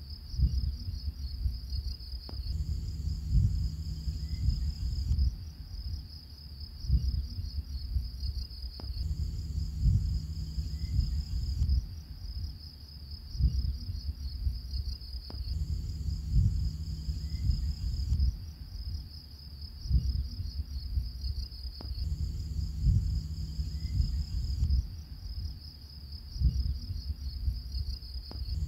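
Insects chirping in a steady, high, rapidly pulsing trill over a low rumble. The whole track repeats about every six and a half seconds, as a looped ambience recording.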